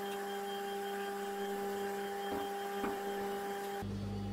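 Steady electric hum with a few faint, soft handling sounds in the middle. Near the end its higher tones drop out and a deeper hum takes over.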